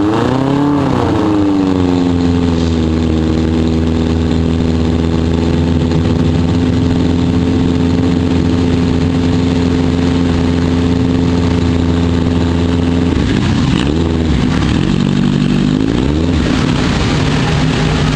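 Legend race car's Yamaha motorcycle engine running: a quick rev at the start, then held at a steady speed for about ten seconds, then revved up and down a few more times near the end.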